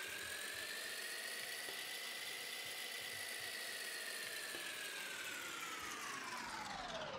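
Whirring fast-forward sound effect over time-lapse footage: a steady whir whose pitch rises slowly, then drops away near the end as it winds down.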